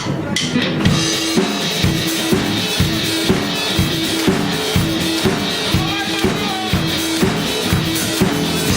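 Live rock band playing without vocals: drum kit keeping a steady beat of about two hits a second over sustained bass notes.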